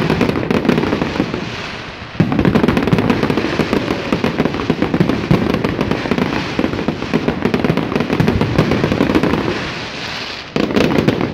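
Fireworks display barrage: a dense run of rapid bangs and crackles from bursting shells. It eases off slightly, then jumps back in with a sudden loud burst about two seconds in and again near the end.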